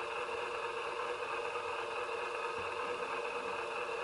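Model diesel locomotive's sound decoder idling with a steady hum while the train stands still, picked up through a waterproof action-camera case.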